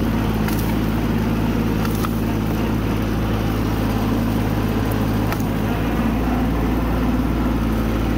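Compact tractor engine running at a steady speed as the tractor is driven slowly forward through brush and fallen branches.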